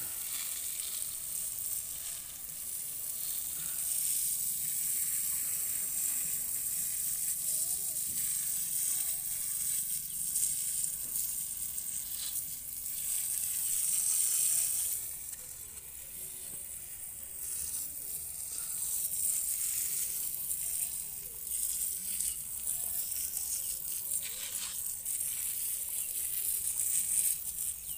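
A narrow jet of water from a hose spray nozzle hissing steadily as it hits wet soil in a planting bag, washing the soil away. The hiss briefly drops about halfway through, then picks up again.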